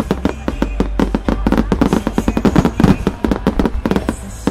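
Starmine fireworks barrage: many aerial shells bursting in rapid succession, several sharp reports a second over a low rumble.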